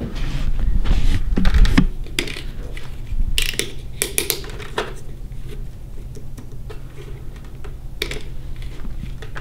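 Plastic clicking and rattling of a hard-hat-mounted HoloLens 2 headset being put on and its rear headband suspension adjusted by hand. The clicks come in irregular runs, heaviest in the first two seconds, with another cluster about three and a half to five seconds in and a few near eight seconds.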